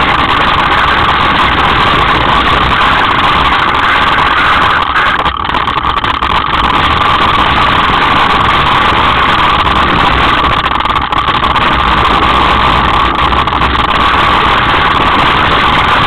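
Loud, steady noise of a Specialized S-Works hardtail mountain bike descending a loose, stony track: tyres rolling over stones with wind on the bike-mounted microphone. The noise eases briefly about five seconds in and again near eleven seconds.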